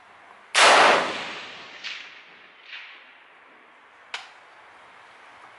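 A single rifle shot from a Ruger AR-556 (5.56 AR-15 with a 16-inch barrel), a loud crack with a long fading tail and two fainter cracks trailing it. A shorter, quieter sharp crack follows about four seconds in.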